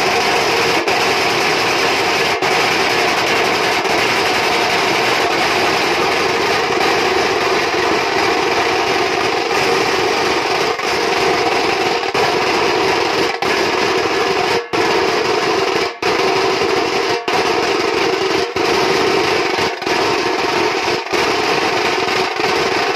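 Nashik dhol ensemble: many large barrel dhols and smaller stick-played drums beating together in a loud, dense, continuous rhythm. In the second half the beat breaks off for a split second roughly once every second and a bit, as accents in the pattern.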